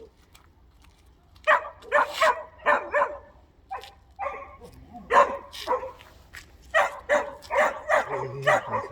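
A dog barking repeatedly, starting about one and a half seconds in: short barks in quick runs with brief pauses between them.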